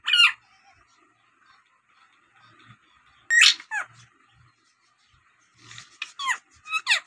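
Rose-ringed parakeet giving short, sharp calls that sweep down in pitch. There is one call at the start, two about three seconds in, and a quick run of several near the end.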